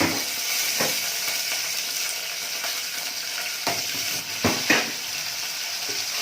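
Peppers sizzling as they fry in hot oil in a pan, with a few knocks of a utensil stirring them against the pan, the loudest about four and a half seconds in.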